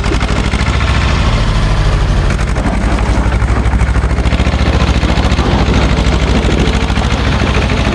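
Small SAME tractor's engine running with a fast, even exhaust beat while pulling a trailer loaded with river stones.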